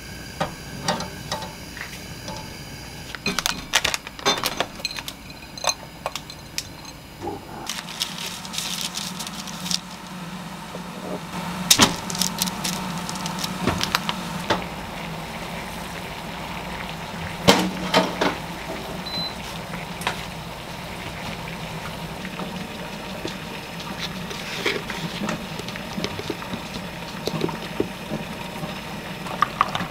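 Kitchen cooking sounds: eggs set into a metal pot on a gas stove, scattered clicks and knocks of cookware and utensils, and a steady low appliance hum that sets in about a quarter of the way through.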